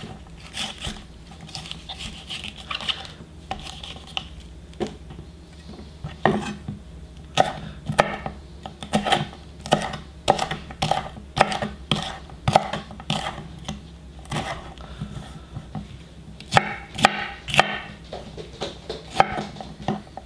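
Chef's knife slicing a bell pepper into strips on a wooden cutting board: the blade knocks the board in short, irregular strokes, sparse at first and coming about one to two a second after the first few seconds.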